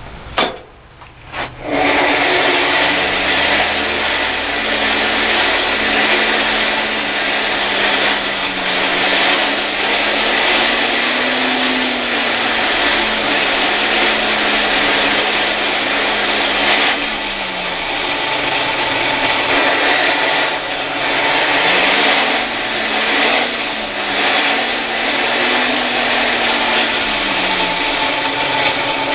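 Forge blower, over a century old, running: a steady rush of air with a low whine that rises and falls as its speed changes. A couple of sharp knocks come just before it starts.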